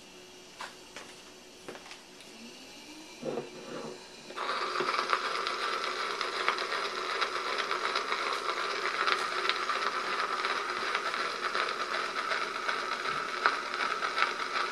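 Cylinder record surface noise played through a small guitar amplifier: a steady crackly hiss from the stylus riding the unrecorded groove ahead of the music. It starts suddenly about four seconds in, after a few faint clicks and a short buzz.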